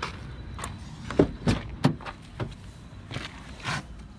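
A quick run of about six knocks and clunks, the loudest a little over a second in, as a car door is opened and someone climbs into the driver's seat.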